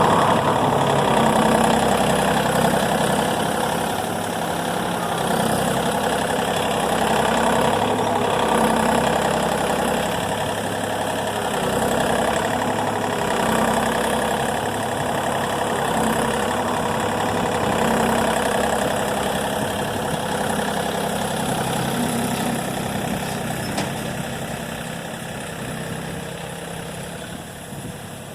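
A John Deere tractor engine running steadily, easing off in loudness near the end.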